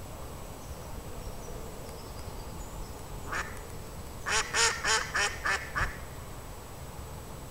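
Duck quacking: a single quack, then a run of about six quacks at roughly four a second.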